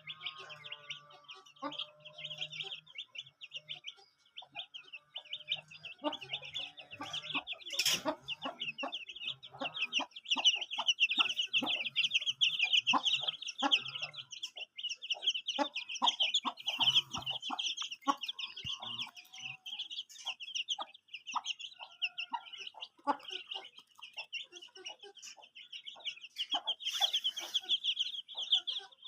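Flock of chickens calling continuously: a dense, high chorus of rapid peeping with many short clucks among it. A couple of louder sharp knocks stand out, one a third of the way in and one near the end.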